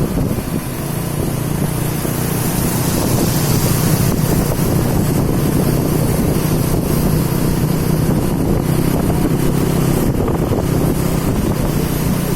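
Bus's diesel engine running steadily with a low hum, with wind noise on the microphone.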